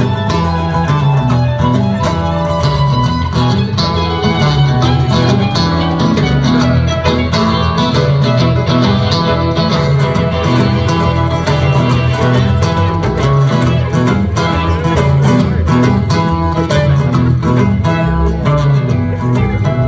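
Live rock band playing an instrumental passage, with guitars over a repeating bass line and drums.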